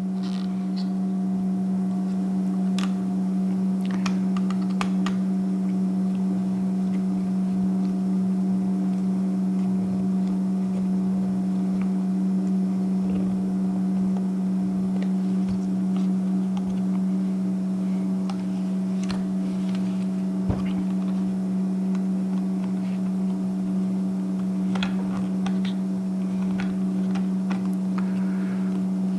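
A steady hum runs throughout, with scattered light clicks and taps of hand-tool work with a screwdriver on the steering column's shear bolts.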